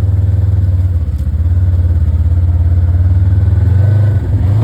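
Polaris RZR side-by-side's engine running as it is driven, a steady loud rumble whose pitch rises a little about four seconds in.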